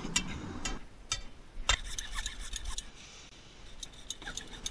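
Steel pry bar scraping and knocking against broken concrete and grit in a curb trench: a run of sharp clicks over a low scrape that eases off about a second in, followed by scattered sharp clicks and knocks.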